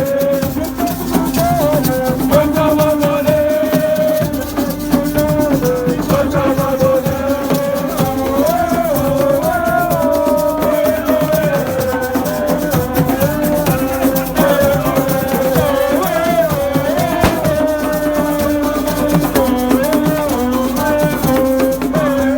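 Music with shaken rattles keeping a steady beat, and a wavering, ornamented melody line over a steady low drone.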